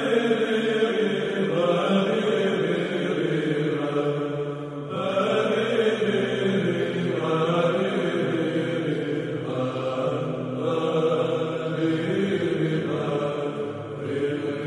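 Byzantine chant: slow, long-held vocal phrases sung over a steady low drone note.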